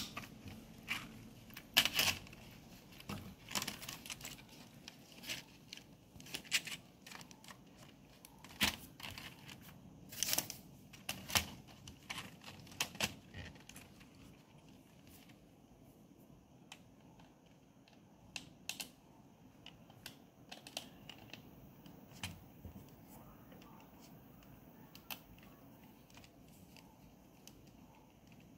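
Plastic computer keyboard case being handled and fitted back together: scattered clicks, taps and light knocks, frequent in the first half and sparser afterwards.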